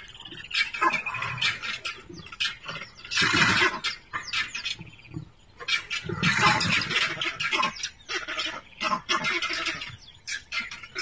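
A leopard scuffling with porcupines: irregular bursts of rattling, hissing noise made of many quick clicks, loudest about three seconds in and again from about six to seven and a half seconds, typical of porcupines rattling their raised quills as they fend off the cat.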